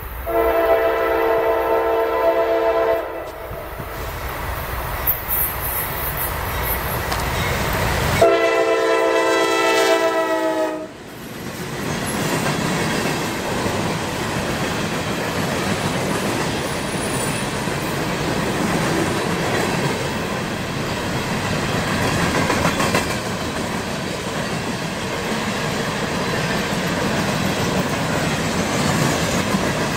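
CSX freight train: the locomotive's multi-tone air horn sounds two blasts of about three seconds each, the second falling in pitch as the locomotive goes by. Then the open hopper cars pass close by, their wheels clacking steadily.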